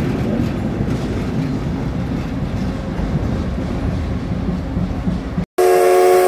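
A diesel locomotive and railcar passing close by: a steady low rumble of engine and wheels on the rails. After a cut about five and a half seconds in, the CK124 steam locomotive's whistle sounds loudly, a chord of several steady tones.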